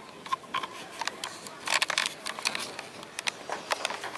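Dry leaves and twigs crackling and rustling in short, irregular bursts of clicks, densest about two seconds in.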